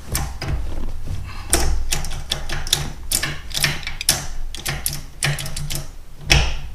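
LMR Econoshift short-throw shifter being worked through the gears of a T-5 five-speed manual transmission, giving an irregular string of metallic clicks and clunks as the lever moves through the gates.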